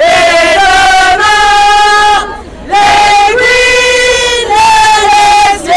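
Slogans chanted in a sung tune through a megaphone, very loud and harsh, in long held phrases with two short breaks for breath.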